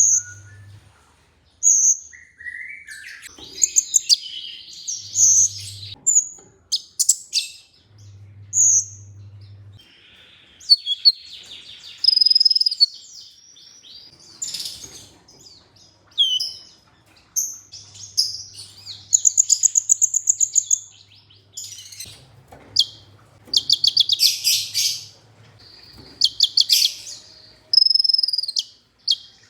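Kolibri ninja (a sunbird) singing: a busy run of high chirps, short whistled notes and fast trilled rattles, densest near the end.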